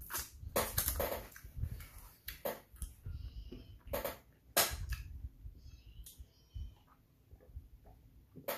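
Close mouth sounds of someone eating very spicy instant noodles: a string of short, noisy breaths and mouth noises, then a sip from a foam cup near the end.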